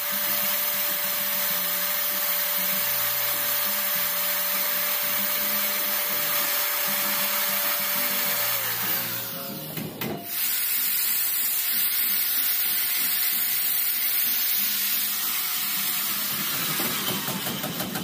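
Corded electric drill running at speed, boring a small hole through a PVC pipe with a steady whine. The motor slows and stops about nine to ten seconds in, runs again, then winds down near the end.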